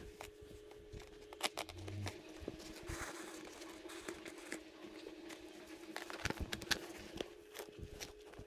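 Scattered, irregular light clicks, taps and rustles of hand work on a motorcycle seat cover, over a steady low hum.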